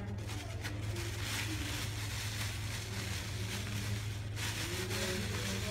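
A steady low hum, with a soft rustle of a plastic bag that grows louder from about a second in to past the middle as powder is tipped from it into the pot.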